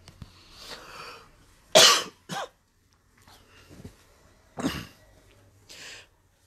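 A person coughing twice, sharp and short, with softer rustling of silk saree fabric being unfolded between the coughs.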